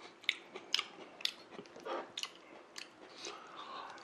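Chewing a mouthful of crisp lettuce salad: irregular crunches about twice a second.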